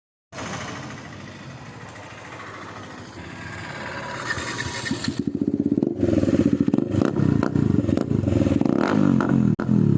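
Bajaj Dominar 400's single-cylinder engine approaching and growing steadily louder, then going past close by, revving with rapid firing pulses and sharp pops and crackles from the exhaust.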